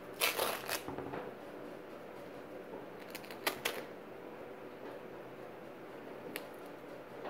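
Duct tape being pulled off its roll in short rips: two in the first second, two more about three and a half seconds in, and a light click near the end.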